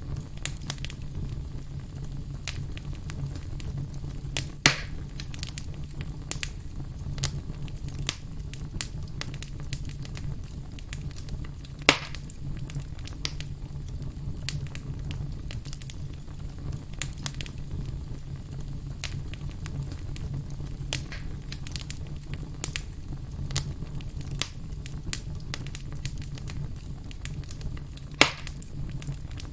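Burning firewood crackling steadily, with many small ticks and three louder pops: about five seconds in, about twelve seconds in and near the end. A low steady rumble runs under the crackle.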